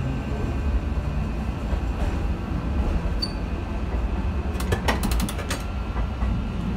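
Okayama Electric Tramway streetcar heard from inside at the front: a steady low rumble of the tram running. A short high beep about three seconds in and a quick run of sharp mechanical clicks about five seconds in.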